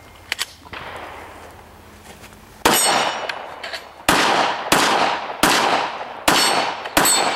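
About six gunshots fired at an even pace, starting a few seconds in, each followed by a ringing metallic clang as the rounds strike steel targets.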